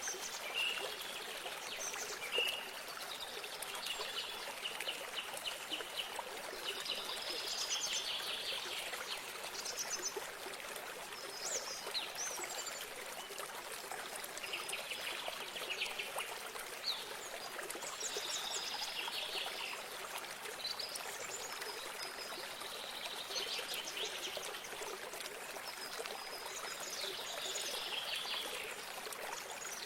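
Small songbirds singing repeated trilled phrases every few seconds over the steady trickle of running water.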